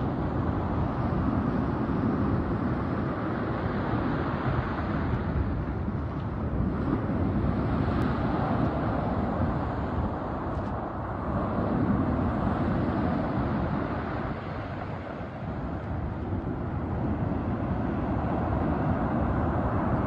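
Heavy surf from a rough sea breaking and washing up a pebble beach, a steady rush of water that swells and eases every few seconds, with wind rumbling on the microphone.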